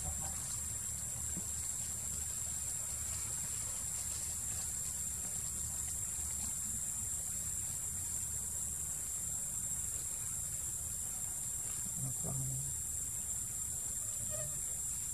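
Steady high-pitched drone of forest insects, with a brief low sound about twelve seconds in.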